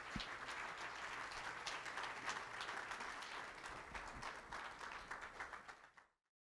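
Audience applauding, many hands clapping steadily, cutting off suddenly near the end.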